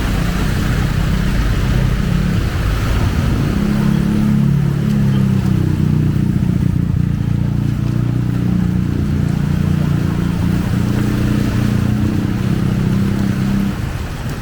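A motor vehicle's engine running close by at a steady, unchanging speed, its low hum stopping abruptly near the end.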